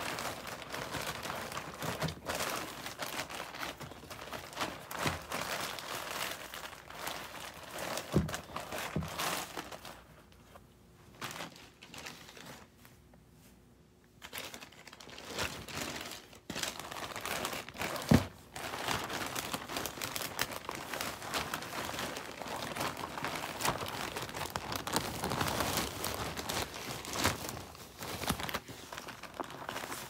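Clear plastic bags crinkling as they are handled and opened by hand, in two long stretches with a quieter pause of a few seconds between them. A few sharp knocks, the loudest a little past halfway.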